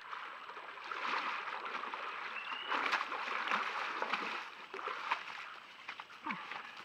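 Black bear wading through shallow water, splashing with each step, then the splashing dies down about four and a half seconds in as it steps out onto the bank.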